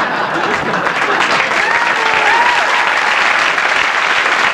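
Studio audience applauding steadily after a punchline, with a few voices calling out above the clapping around the middle.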